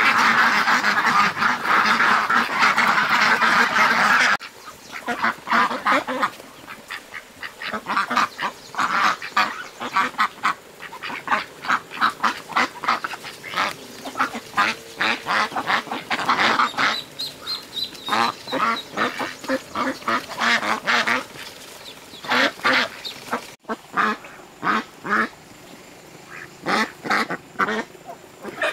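A flock of white domestic ducks quacking: a loud, dense chorus of many birds at once for about the first four seconds, then it drops to separate quacks coming in quick runs.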